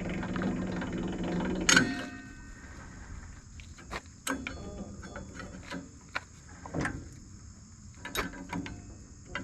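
A brief machine hum that stops with a loud clunk about two seconds in, followed by scattered clicks and knocks of equipment being handled and adjusted.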